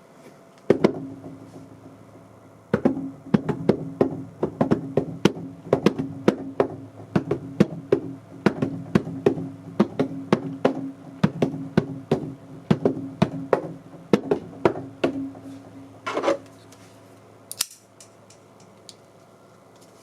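Sharp taps or knocks run through an audio mixer, about three a second, over a steady low hum. They stop with a short burst of noise and a final click, leaving only the hum.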